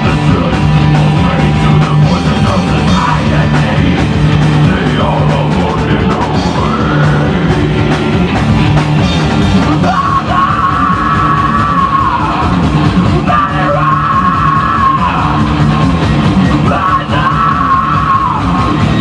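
Loud live heavy metal band playing, with distorted electric guitar and drums under a singer yelling into the microphone; several long held notes come in the second half.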